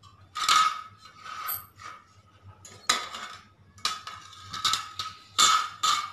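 Metal wire kitchen shelf being assembled by hand: its parts clink and knock together in several sharp, irregular strikes.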